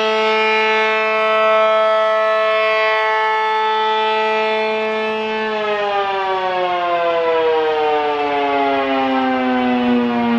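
ACA Allertor 125 warning siren, fitted with a Penetrator horn and an 8/12-port rotor, holding its steady Alert tone as a chord of many even overtones. About five and a half seconds in, the pitch begins falling steadily as the siren winds down at the end of its Alert test.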